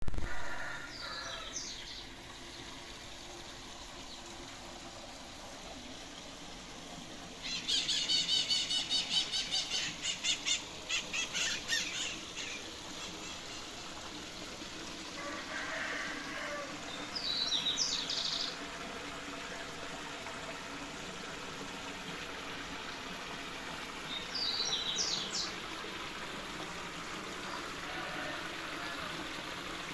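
Birds calling outdoors: a loud, fast run of repeated high calls lasting about four seconds, and short high chirps every several seconds, over a steady background hiss.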